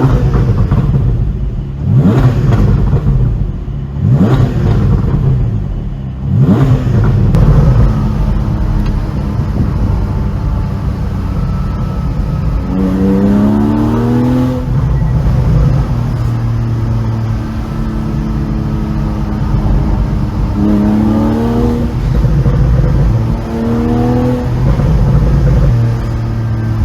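Porsche 718 Boxster 4.0 GTS's naturally aspirated flat-six on a pop-and-bang ECU tune, revved sharply about four times in the first seven seconds. It then runs more steadily, with three slower climbs in pitch in the second half.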